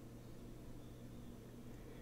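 Quiet room tone: a faint steady low hum and hiss, with no distinct sounds.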